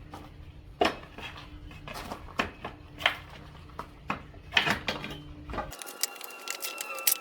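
A homemade steel-pipe pallet buster prying boards off a wooden pallet: sharp knocks and clatters of steel against wood, spaced about a second apart. Near the end the low rumble drops away, leaving quicker light clicks and a faint steady whine.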